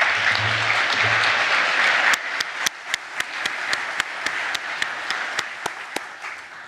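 Audience applauding: a full burst of clapping for about two seconds that thins into scattered individual claps and dies away near the end.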